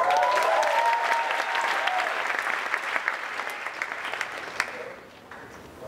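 Large audience clapping and cheering, with whoops near the start. The applause thins out and fades over about five seconds.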